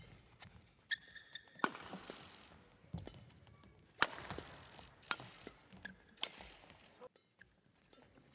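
Badminton rally: sharp racket strikes on the shuttlecock about once a second, the loudest about four seconds in, with a brief squeak of shoes on the court floor early on.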